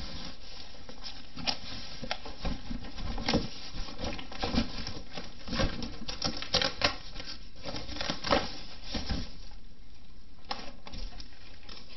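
Cardboard boxes being handled and shifted: a busy, irregular run of rustling, scraping and knocks, thinning out to a few quieter sounds near the end.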